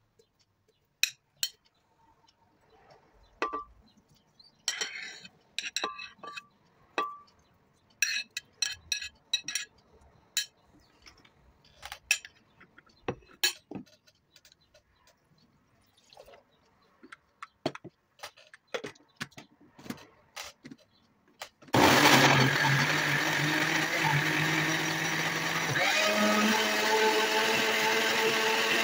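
Chunks of fruit and kale dropped into a glass blender jar: a scattered series of clinks and knocks. About 22 s in, the countertop blender's motor starts and runs steadily, chopping them into a smoothie, its tone shifting a few seconds later.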